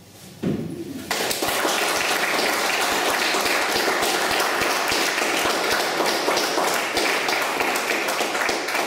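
Audience applauding, a dense patter of many hands clapping that starts suddenly about a second in and holds steady. A brief low sound comes just before it.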